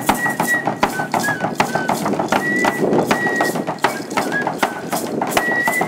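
Traditional dance music: a high pipe plays a stepping melody over quick, steady drum beats.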